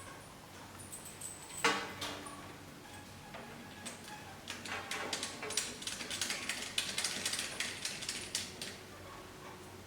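Small plastic-and-metal clicks and rattles of machine parts being handled: one sharp click, then a run of quick little clicks as a connector is fitted to the panel of a cryolipolysis and shockwave beauty machine.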